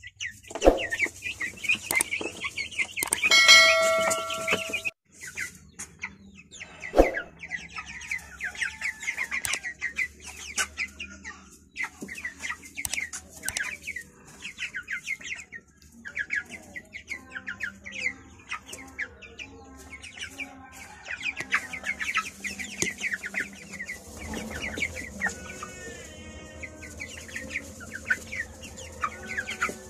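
A flock of young white broiler chicks peeping, with many short high calls overlapping throughout. About three seconds in, a brief steady tone sounds over them, the loudest thing here, and there are sharp clicks near the start and about seven seconds in.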